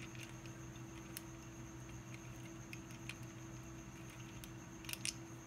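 Faint, scattered clicks and taps from a 3D-printed plastic magnetic gearbox being handled and turned by hand, with two sharper clicks near the end. A steady low hum and a faint high whine run underneath.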